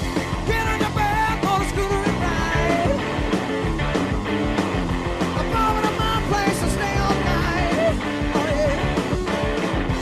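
Hard rock band playing live: electric guitar over bass and drums.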